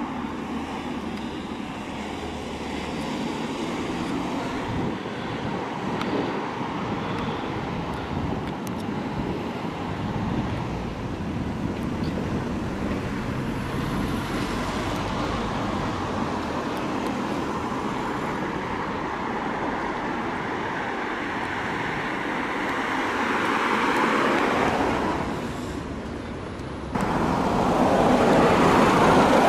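Urban road traffic: vehicles driving past, with one passing louder a few seconds before the end. The traffic noise then jumps abruptly louder and closer near the end.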